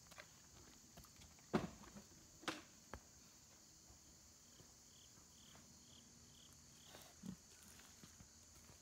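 Pigs shifting and nosing at a wooden feed trough: a few scattered soft knocks and shuffles, the loudest about a second and a half in, over a faint steady high insect drone. A short run of about six faint high chirps in the middle.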